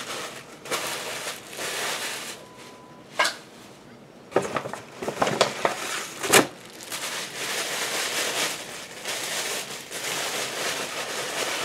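Paper rustling and crinkling as hands rummage inside a paper gift bag, with a few sharper crackles.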